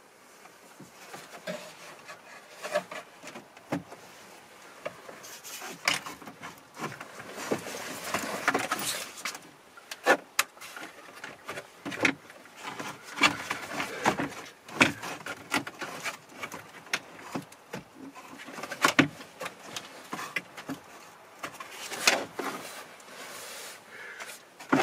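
Hands working down inside an opened-up pickup dashboard at the gear selector linkage: scattered clicks, knocks and rubbing of plastic and metal parts. The handling grows busier after the first few seconds, with several sharp clicks.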